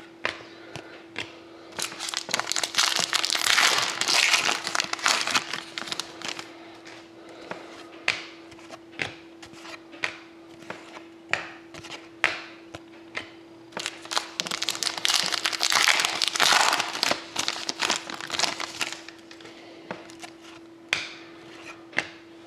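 Stiff hockey trading cards being flipped and slid against each other by hand: papery rustling in two longer stretches, with many short clicks of card edges. A faint steady hum runs underneath.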